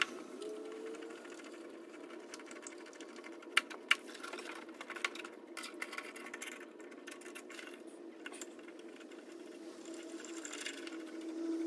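A few light clicks and taps as a plastic double socket faceplate is set against a wall and screwed in with a screwdriver, over a steady low mechanical hum from an unseen motor.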